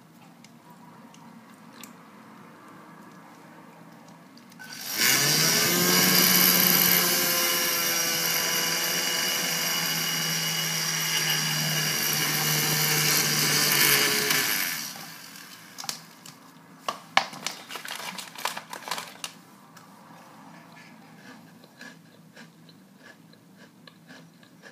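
Small battery-powered electric motor of a home-made toy car spinning its propeller: it speeds up with a rising whine, runs steadily for about ten seconds, then winds down and stops. A few sharp clicks and knocks follow.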